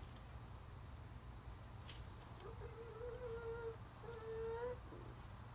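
A hen giving two drawn-out, whining calls in a row, the second shorter, each rising slightly at the end; a single sharp click comes just before them.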